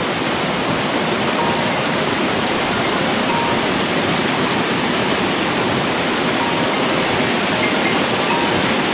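Creek water rushing steadily over rocks, a loud, even rush close by, with a few faint short whistle-like notes scattered through it.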